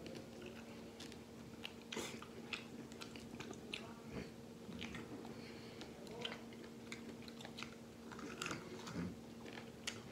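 A man chewing and gnawing braised duck wings at close range, with many small clicks scattered through. A faint steady hum runs underneath.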